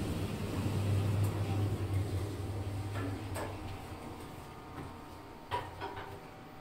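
Otis Gen2 passenger lift travelling: a steady low hum from the moving cab fades about three and a half seconds in as it slows to a stop. A few sharp clicks follow from the cab and door mechanism.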